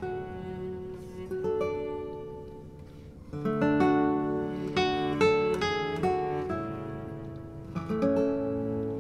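Background music: acoustic guitar, notes plucked and left ringing. It thins out around two to three seconds in, then turns fuller and louder from about three and a half seconds.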